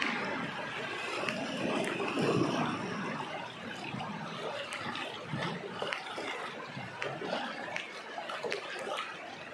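River water rushing and splashing past the side of a narrow boat going through shallow rapids, with a few brief sharp clicks.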